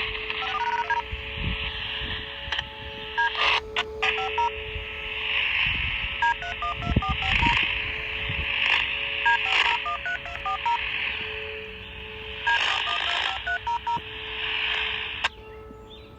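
County emergency-management radio channel heard through a scanner: several sequences of touch-tone (DTMF) siren-activation codes, short beeps stepping between pitches, over a steady hiss of radio static. The transmission cuts off suddenly near the end.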